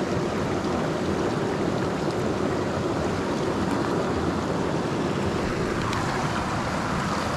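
Small rocky mountain creek running over stones in a steady rush, with a few faint splashes and ticks as a hand works in the shallow water.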